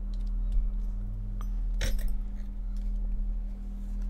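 Tarot cards being picked up and shuffled by hand, with faint slides and taps and one sharper click about two seconds in, over a steady low hum.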